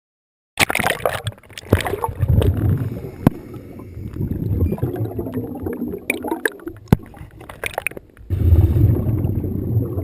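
Underwater scuba sound: exhaled bubbles from a diver's regulator gurgling and rumbling in uneven surges, with a few sharp clicks. It starts about half a second in, and a strong surge of bubbles comes near the end.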